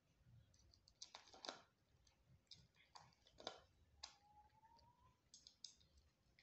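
Faint, irregular crunches and clicks of a Himalayan cat chewing dry cat kibble from a plate.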